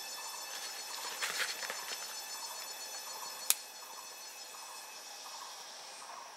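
Dry sticks rustling as they are handled, then a single sharp snap a little past the middle as a thin stick is broken, over a steady high-pitched drone of forest insects.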